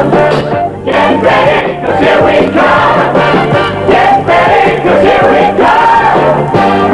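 A musical number: several voices singing together over a band.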